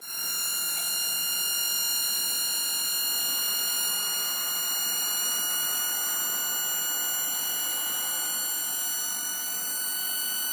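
Samsung NP350V5C laptop cooling fan running fast: a steady, high-pitched whine of several tones over a rush of air. This is the noise of a laptop that runs loud and hot with a cooling system needing cleaning. It cuts off suddenly near the end.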